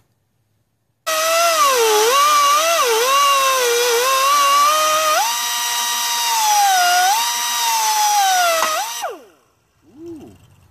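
Die grinder cutting through the spokes of a rusty tractor wheel centre: a high whine whose pitch dips and recovers as it bites into the metal, holds steadier for a few seconds, then winds down, followed by a brief short burst.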